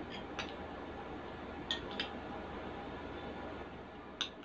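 Close-up eating sounds: quiet chewing with four short clicks, two close together midway and the loudest near the end, over a steady low background hum.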